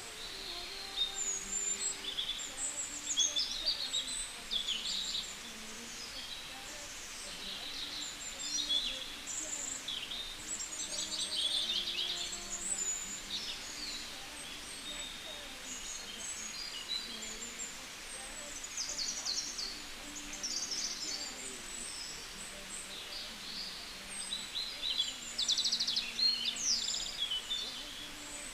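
Several birds singing and chirping at once, with overlapping high calls and quick trills.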